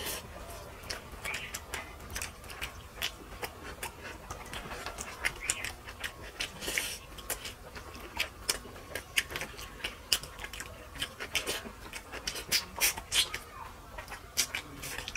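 Eating sounds from two people eating fish curry and rice by hand close to the microphone: wet chewing and lip smacks heard as a fast, irregular run of sharp clicks.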